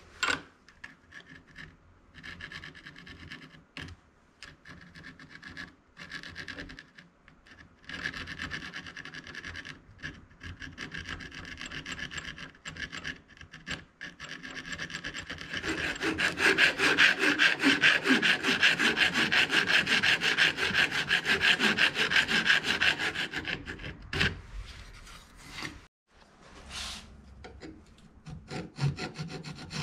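Hand tool rasping on aluminum stock, like filing or sawing: scattered strokes at first, then a rapid, continuous run of scraping strokes lasting about seven seconds, with a few separate knocks after it.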